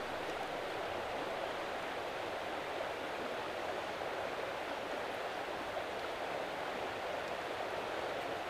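Rushing creek: a steady, even rush of flowing water.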